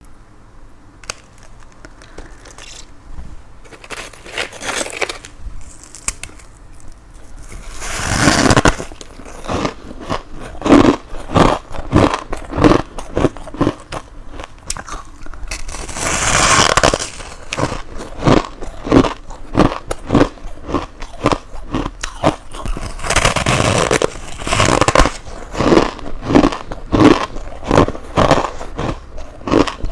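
Close-miked bites and chewing of freezer frost ice: rapid crunches and squeaks of packed frost between the teeth. The first several seconds are quieter, and dense crunching with louder bites follows.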